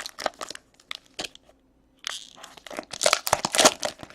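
Trading cards and their plastic packaging being handled: a string of crinkles, crackles and small clicks, thickest in the second half.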